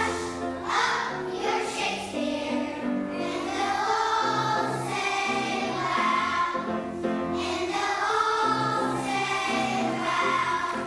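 A choir of first-grade children singing a song together, held notes changing every half second or so.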